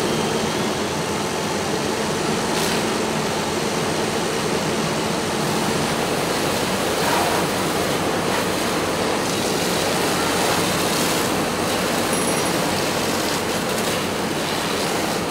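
Fire engine's pump running while hose streams spray water: a steady rushing noise with a low engine drone underneath.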